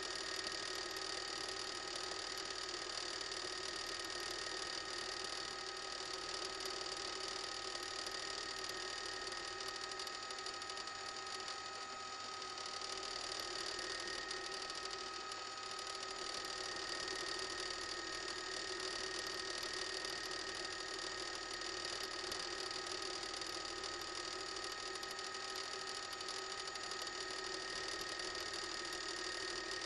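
Steady news-helicopter cabin noise: a whine holding several fixed pitches over an even hiss, unchanging throughout.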